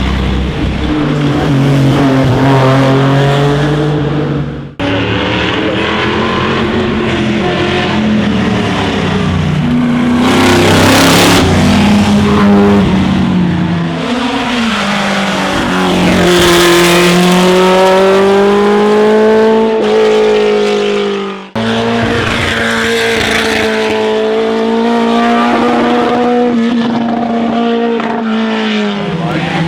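Classic racing cars under hard acceleration, their engine notes rising and dropping as they rev and change gear, in three edited clips with abrupt cuts about five and twenty-one seconds in.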